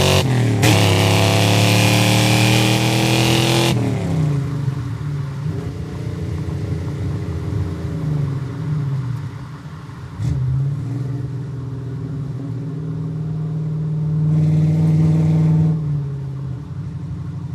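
Ford Mustang engine accelerating hard, its pitch rising over the first few seconds with a short break about half a second in, like a gear change. About four seconds in the revs drop and the engine runs at a lower, uneven note, swelling louder again near the end.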